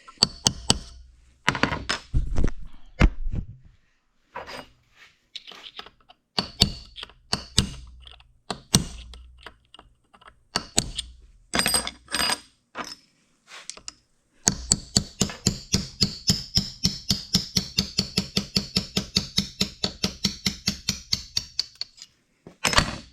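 Hammer blows on a steel punch driving a pin or shaft out of a cast-iron gearbox. First come scattered sharp metal strikes, some of them ringing, then about halfway through a fast, even run of light taps, about five a second, for several seconds, and one last strike near the end.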